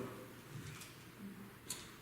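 Quiet pause in a spoken talk: faint room tone, with a single short click near the end.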